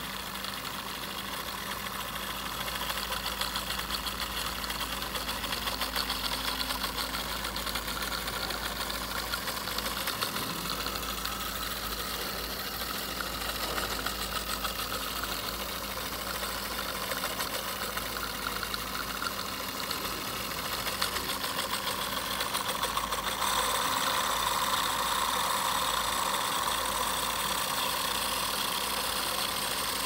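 Model twin-cylinder steam engine running steadily: a fast, even clatter from its small brass pistons, valve gear and crank over a steady hiss, growing a little louder about two-thirds of the way through.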